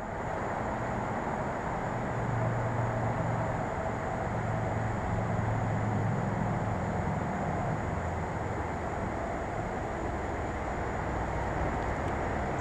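Steady low outdoor rumble with no distinct events, such as distant traffic, with a faint thin high tone running above it.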